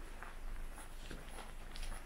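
Footsteps of someone walking at a steady pace on the concrete floor of an underground parking garage, over a steady low hum.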